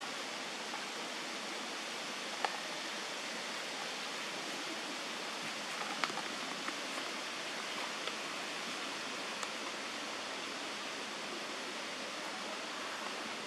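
Steady, even hiss with a few faint ticks scattered through it; no monkey calls.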